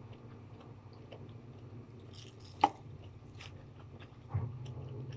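Person chewing a lettuce wrap of ham and crab stick with mouth closed, with small soft mouth clicks throughout and one sharp click about halfway through.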